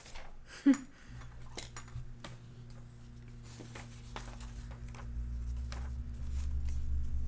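Scattered light clicks and taps of small objects being handled, with one sharper sound under a second in. A low steady hum comes in about a second in and grows louder from about five seconds.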